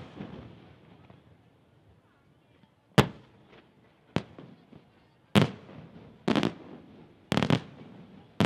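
Aerial firework shells bursting in a fireworks display. The tail of a burst fades at the start, then from about three seconds in comes a string of sharp bangs roughly a second apart, some in quick pairs, each trailing off into a short echo and crackle.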